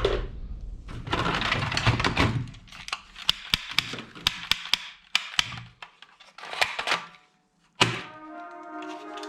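Sharp plastic clicks and snaps, about a dozen in quick succession, with two short rushes of noise: toy guns being cocked and fired. One loud snap comes near the end, then music comes in.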